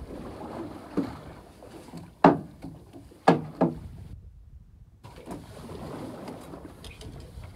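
Steady wind and sea noise on a small fishing boat, broken by four sharp knocks in the first half, the last two close together. About halfway through, the sound cuts out for nearly a second.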